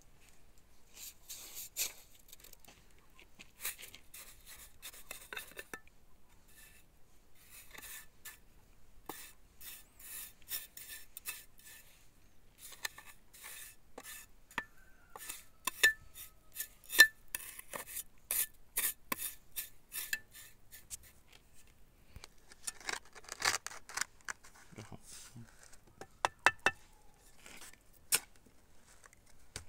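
Mason's steel trowel scraping and clinking as mortar is scooped and packed into a block-lined column form, with a few sharp taps near the end.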